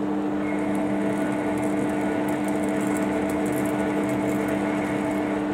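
Centre lathe running steadily while a threading tool takes an internal thread-cutting pass inside the spinning workpiece's bore. The sound is an even hum with several held tones.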